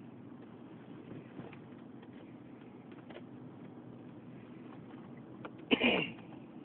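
Steady low road and engine noise inside the cabin of a moving Acura SUV driving on snowy roads, with a few faint ticks. Near the end comes one short, loud sound that falls in pitch.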